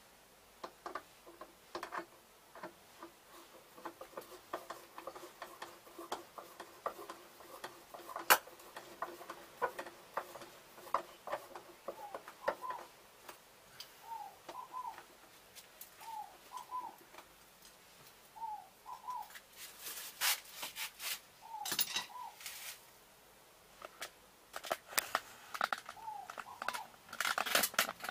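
Small clicks and rustles of hands working on the wiring of an ultracapacitor bank, with one sharp knock about eight seconds in and louder bursts of rustling near the end. From about halfway, a bird chirps repeatedly in short paired calls every second or two.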